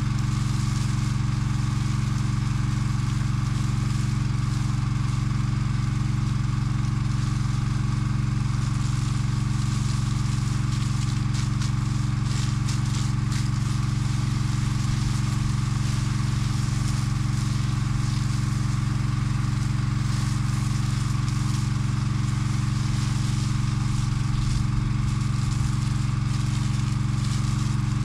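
Engine on a firefighting crawler's water-tank rig running at a steady speed, pumping water out through a hose and nozzle.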